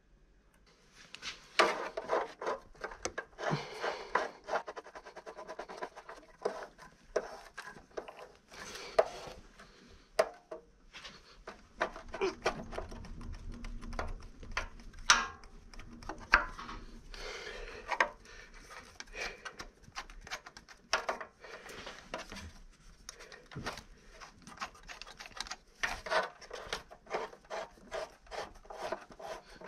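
Metal screw-type oil filter wrench being worked on a car's oil filter: irregular clicks and metallic scraping and rubbing as the knob and threaded rod are turned to clamp the wrench and loosen the filter.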